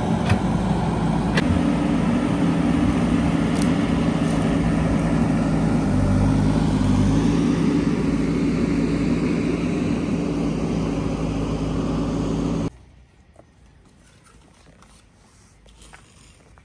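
An engine running steadily at a constant speed, stopping abruptly near the end; faint clicks and low background follow.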